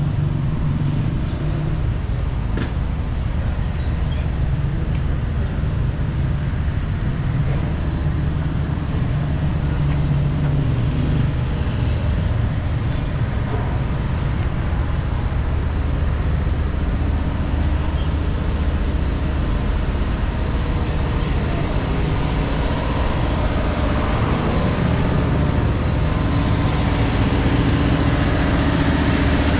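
Street traffic: vehicle engines running with a steady low hum, and a vehicle drawing closer near the end.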